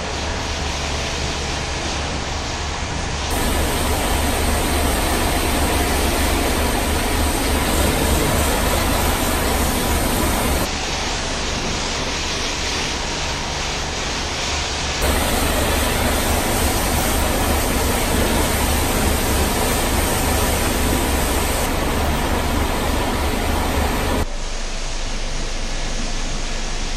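Pressure-washer lance spraying water against the panels of a Scania bus: a steady hiss that gets louder from about 3 to 11 seconds in and again from about 15 to 24 seconds. A low steady hum runs under it and stops near the end.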